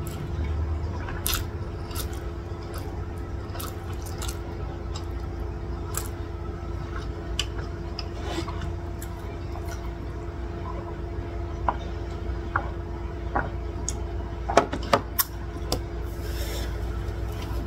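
Close-up eating mouth sounds: scattered small wet clicks and smacks from chewing and licking food off the fingers, over a steady low hum. The clicks cluster most thickly near the end.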